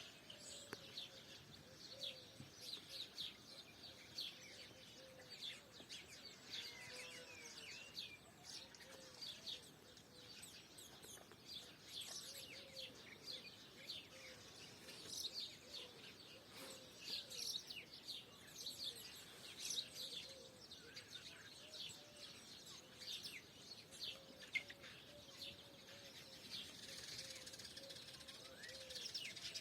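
Faint morning birdsong: many small birds chirping and twittering in quick, short notes throughout, with a softer, lower call repeating underneath.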